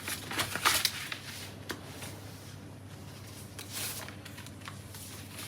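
Rustling and handling noises, with a cluster of sharp clicks in the first second, another click a little later and a longer rustle a few seconds in.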